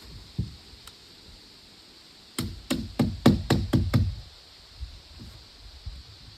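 A quick run of about seven sharp knocking blows, roughly four to five a second, a little before the middle, preceded by a couple of lighter knocks.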